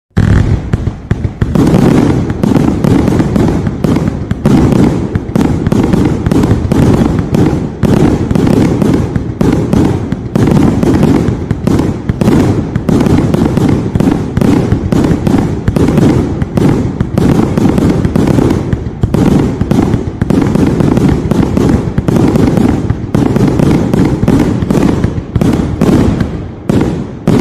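Vivid Pyrotechnics Sky Candy, a 100-shot 30 mm compound firework cake, firing its mine lifts: a rapid, unbroken run of loud shots, several a second, that dies away near the end.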